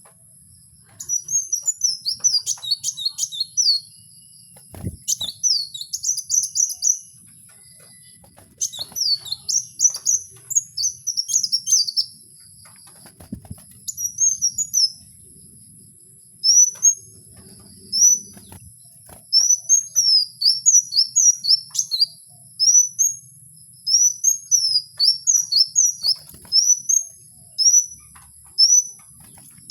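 A songbird called kowul in Indonesia singing: quick runs of high, sharp chirped notes in phrases of two to three seconds separated by pauses, then from about halfway spaced-out single and paired chirps, one or two a second.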